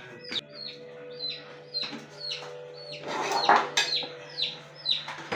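Chickens calling nearby: a high, falling peep repeated about twice a second. A short burst of noise about three seconds in.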